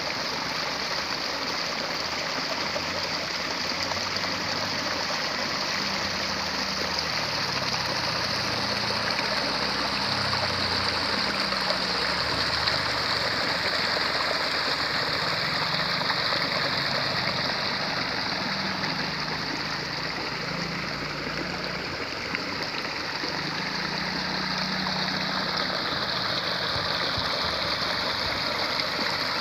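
Water flowing and babbling through the rice-paddy irrigation, a steady rushing hiss that holds throughout.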